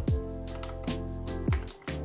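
Background music with a steady, deep beat, with the keys of a Ducky One 3 mechanical keyboard with Cherry MX Brown switches clacking over it as it is typed on.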